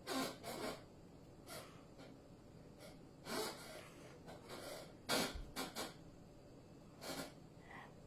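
A person's short, sharp breath sounds: about a dozen gasps and huffs at irregular intervals, a few with a slight voiced catch.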